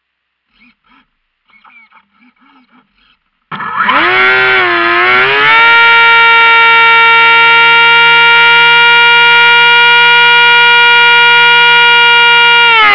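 Seamaster RC plane's electric motor and propeller spinning up suddenly about three and a half seconds in, a loud whine that rises, dips briefly, then holds a steady high pitch at full throttle for takeoff from snow. The pitch eases down slightly near the end.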